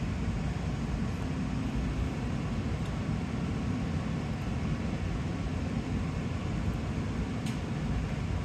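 Steady low rumbling hum with no change or distinct events.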